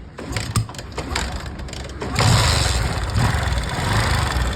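Platina motorcycle's single-cylinder engine: a few clicks and knocks, then about two seconds in it starts and runs steadily. The tappets have just been reset from a wide gap, and the tappet noise is gone.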